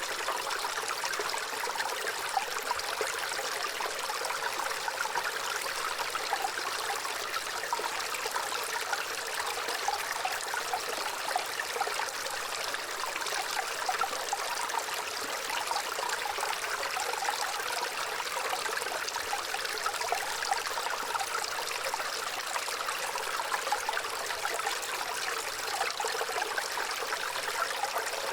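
Gentle running water, a small stream trickling and babbling steadily without pause.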